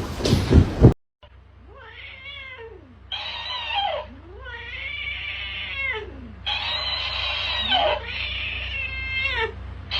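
A cat yowling in about five long, drawn-out calls in a row, each rising and falling in pitch. This follows a loud noisy second that cuts off abruptly.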